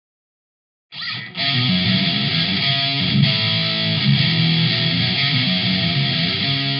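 Rock song intro: after about a second of silence, a distorted electric guitar plays with the treble cut away, so it sounds muffled.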